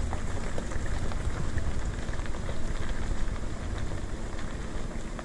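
Truck rolling slowly along a gravel road: steady crackle of tyres on gravel over a low road and engine rumble.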